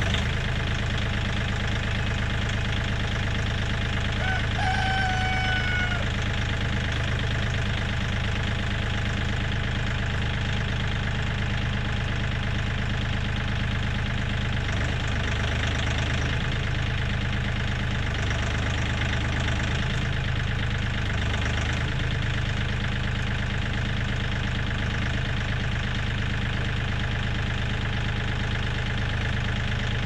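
Kioti 3510 compact tractor's three-cylinder diesel engine running steadily at idle, driving the backhoe's hydraulics as the boom is lowered to the ground.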